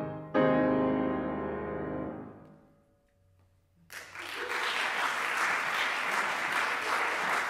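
Flute and piano strike the final chord of the piece, which rings and dies away over about two seconds. After a moment of near silence, audience applause breaks out about four seconds in and carries on steadily.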